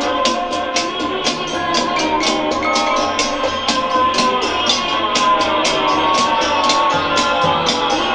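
Indie rock music with no vocals: sustained tones under a fast, steady beat of sharp high percussion strokes, about five or six a second.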